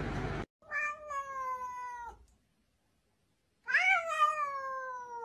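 House cat meowing: two long, drawn-out meows a couple of seconds apart, each sliding slowly down in pitch.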